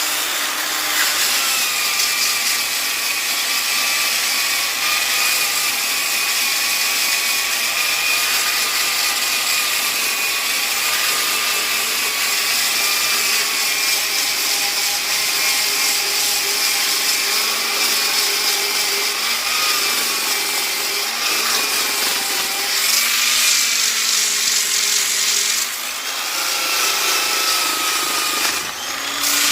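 Black & Decker electric polisher running and sanding a wooden spout of ipê roxo: a steady abrasive hiss over a motor whine that wavers slightly in pitch, dipping briefly twice near the end.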